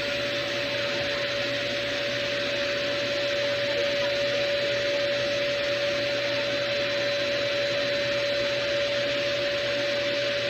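RevAir reverse hair dryer running steadily: the rushing air of its suction fan with a steady whine.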